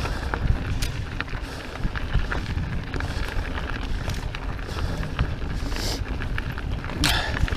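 Santa Cruz Megatower full-suspension mountain bike riding fast down a dry dirt and gravel trail: wind rumbling on the microphone, tyres crunching over gravel and rocks, and the bike rattling with scattered sharp clicks and knocks. A brief hiss of tyres scrubbing loose gravel or brushing past bushes comes about seven seconds in.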